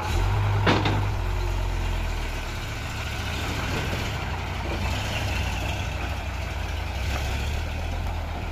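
Tow truck's diesel engine running steadily as it drives forward, pulling a steel tow cable. A short sharp noise sounds about a second in.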